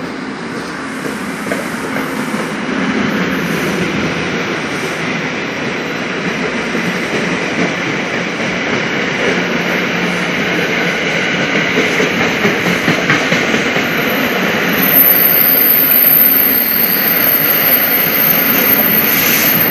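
NJ Transit passenger train's coaches rolling past the platform and picking up speed, the wheel and rail noise growing steadily louder. A high thin whine joins in about three-quarters of the way through.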